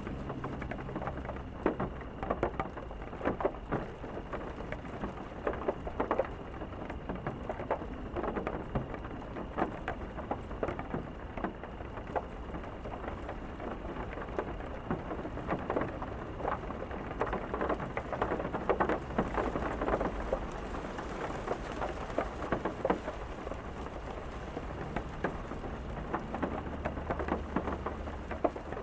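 Steady rain, with many individual drops striking close by over a continuous hiss and a low rumble underneath.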